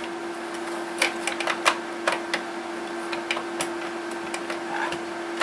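Irregular clicks and taps of plastic and metal parts being handled inside the opened boombox as the loosened cassette deck is worked free, over a steady hum.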